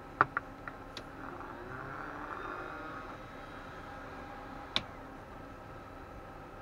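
Hands handling a small plastic cooling fan: a few sharp plastic clicks near the start and another about five seconds in, with soft rustling between them, over a faint steady whine.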